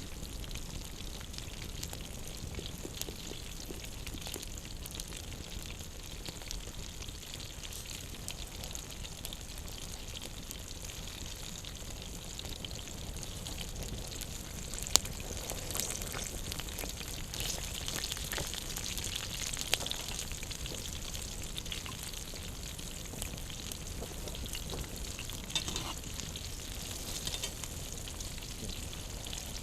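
Open wood campfire crackling and hissing steadily, with three sharper pops, the loudest about halfway through.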